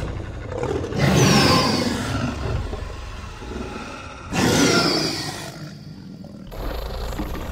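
Tyrannosaurus rex roar sound effect: two long, loud roars, one about a second in and another about four seconds in, each fading away. Near the end a steady low rumble takes over.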